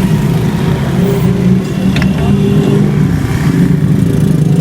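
Motorcycle engine running steadily at close range, a loud even engine hum with a brief click about two seconds in.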